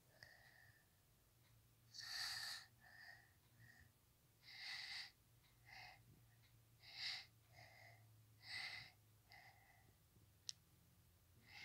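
Faint breathing of a person, a soft hissy puff in and out repeating about every two and a half seconds. There is a single sharp click near the end.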